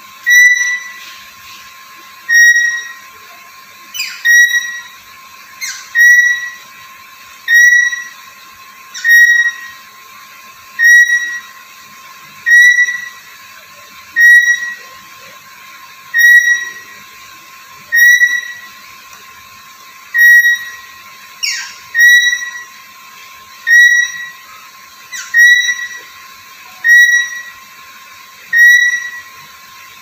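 Black-capped lory giving a loud whistled call over and over, about one every second and a half to two seconds, each note sharp at the start and fading away. A few short sliding chirps fall between some calls, over a faint steady high tone.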